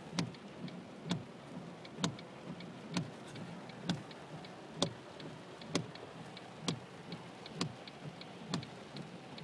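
Regular ticking inside a moving car's cabin, a sharp click about once a second with fainter clicks between, over the hiss of rain and tyres on a wet road.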